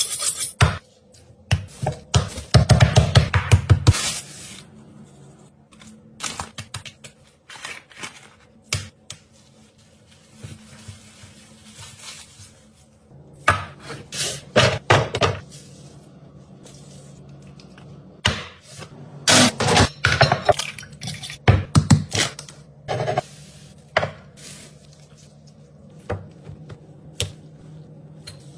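Kitchen preparation sounds: utensils, dishes and a cutting board knocking and clinking, with a quick run of knocks about two seconds in. A steady low hum joins about halfway through.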